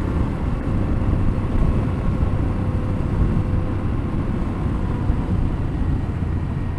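Yamaha Ténéré 700 parallel-twin engine running steadily at cruising speed, under a heavy rumble of wind on the microphone.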